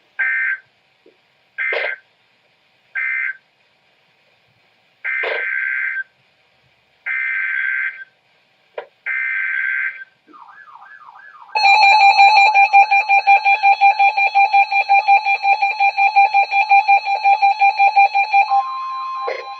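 Emergency Alert System signalling. It starts with three short screeching digital data bursts (the end-of-message code), then three longer header bursts announcing the next warning. A few quick falling chirps follow, then the loud, steady two-tone attention signal for several seconds. Near the end it gives way to a different, quieter single tone.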